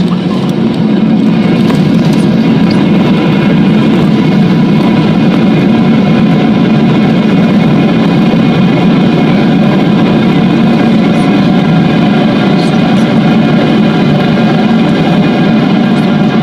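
A Boeing 737-800's CFM56-7B jet engines heard from inside the cabin: a loud, steady drone with several steady tones above it.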